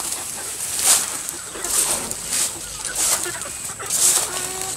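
Steps rustling through grass and low ground cover, about one every three-quarters of a second, with chickens clucking faintly.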